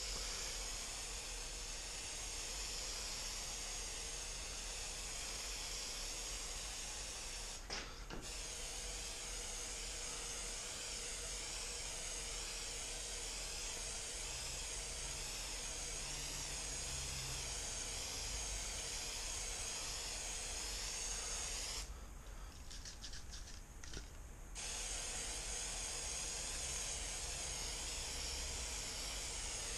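Aerosol can of 3M high-strength contact adhesive spraying in a long steady hiss. The spray breaks off for a moment about eight seconds in, and again for a couple of seconds about three quarters of the way through, with a few short spurts, before running on steadily.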